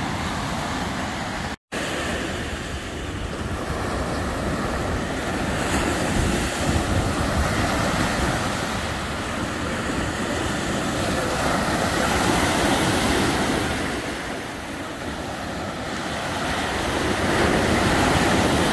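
Lake Michigan surf washing onto the beach, swelling and ebbing every few seconds, with wind buffeting the microphone in a low rumble. The sound cuts out for an instant about a second and a half in.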